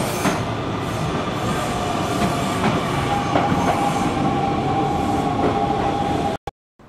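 Electric commuter trains running through a station platform: a steady rumble of wheels on rails with clacks over the rail joints. A steady whine joins about halfway through. The sound cuts off abruptly near the end.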